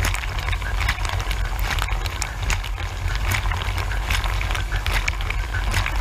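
Dishwasher mid-cycle heard from inside the tub: water jets from the rotating spray arm spattering and crackling against the surfaces, over a steady low hum of the wash pump.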